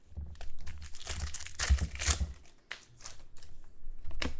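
Crinkling and tearing of a foil trading-card pack wrapper being opened and handled, in irregular rustling bursts.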